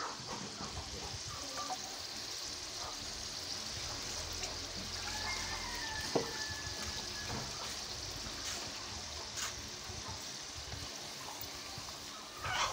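Marinated beef pieces sizzling as they fry in oil and their own juices in a clay cooking pot, a steady hiss.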